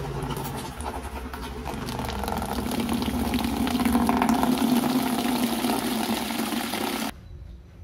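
Tap water pouring from a metal spout into a plastic bucket, splashing more loudly as the flow strengthens, then stopping abruptly about seven seconds in.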